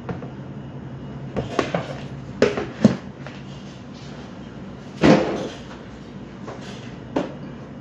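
Kitchen handling noises: several knocks and clunks of things being set down and moved, the loudest about five seconds in, over a steady low hum.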